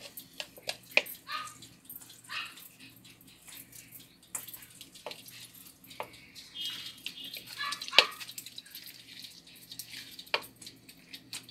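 Wooden spoon scraping and knocking against a metal mesh strainer over a plastic bowl as grated coconut is pressed to squeeze out its milk: scattered clicks and taps, with one sharp knock about eight seconds in.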